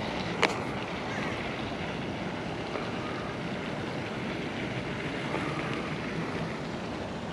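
Wind rushing over the microphone, steady throughout, with one sharp click about half a second in.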